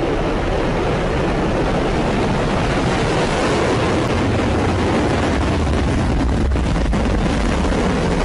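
Loud, steady rushing noise of an Agni-5 ballistic missile's solid-fuel rocket motor at launch, heaviest in the deep low end.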